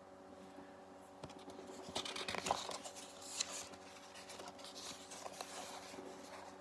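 Paper rustling and scraping with a few soft clicks, as a page of a picture book is turned, loudest about two seconds in, over a faint steady hum.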